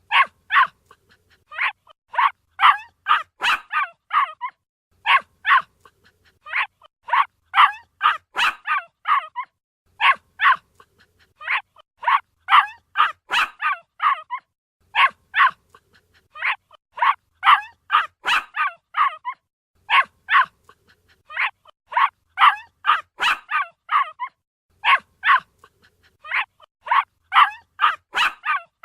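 A puppy barking: high-pitched yaps in quick bursts of three to six, with short pauses between bursts.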